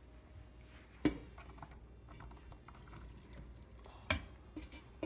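Cookware knocking as drained spiral pasta is tipped from a metal colander into an empty pot: two sharp knocks, about a second in and about four seconds in, with light clicks between.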